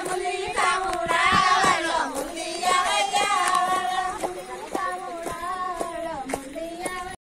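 Women singing together, with hand claps keeping time about twice a second. The sound cuts off suddenly near the end.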